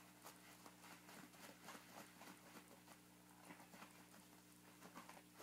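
Faint, irregular scratching and crinkling of paper as a cat claws and bites at a paper towel roll.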